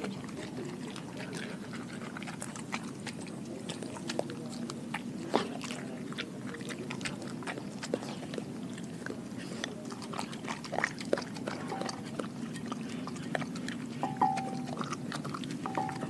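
A German shepherd mix chewing and biting at food, with scattered crunches and sharp clicks of its teeth. The loudest snaps come about five seconds in, around eleven seconds, and near the end.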